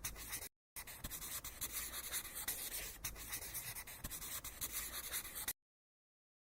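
Scratchy rubbing noise with fine rapid strokes, breaking off briefly about half a second in and cutting off suddenly about five and a half seconds in.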